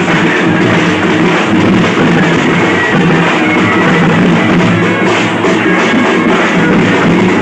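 Loud music with a steady drum beat, running continuously.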